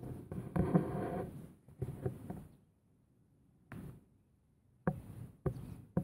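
Several short, sharp knocks or taps, about five, spaced irregularly with stretches of dead silence between them.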